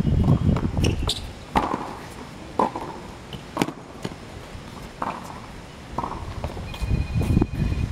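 Tennis ball struck by rackets and bouncing on a hard court during a rally: sharp pops about a second apart, about five of them, ending a little after the middle.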